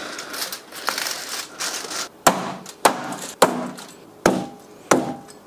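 A cleaver cutting through a roast suckling pig whose skin has been crisped in the oven. First a crackling crunch as the blade goes through the skin, then five sharp chops about every half second, starting about two seconds in.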